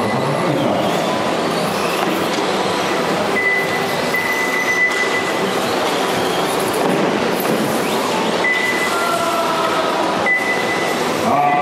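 Radio-controlled rally cars racing on a dirt track: a steady din of their motors and tyres on the dirt, with a thin high whine that comes and goes.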